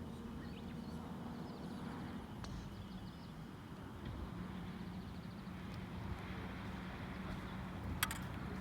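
A steady low hum of a running vehicle motor, with one sharp click near the end.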